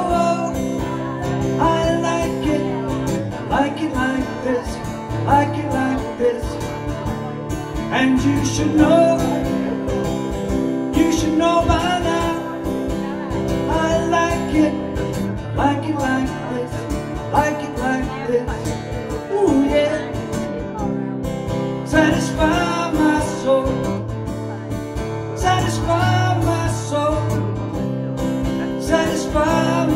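Acoustic guitar strummed steadily with a man singing along.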